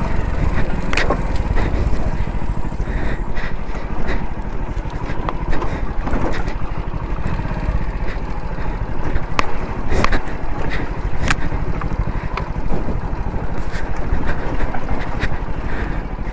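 Hero Splendor motorcycle riding over a rough, rocky off-road track: a steady low rumble of the running bike, with frequent sharp knocks and clatters from the wheels and suspension striking loose stones.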